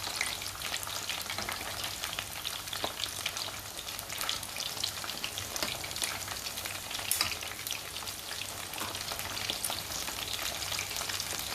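Batter-coated potato tornado spirals deep-frying in hot oil in a kadhai, sizzling steadily with many small irregular pops and crackles.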